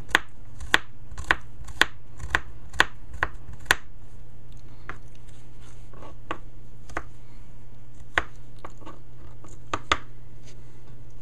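Kitchen knife chopping garlic on a wooden cutting board: sharp taps about twice a second for the first four seconds, then a few scattered taps near the end.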